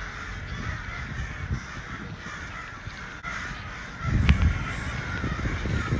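Crows cawing over a low background rumble, which grows louder about two-thirds of the way through.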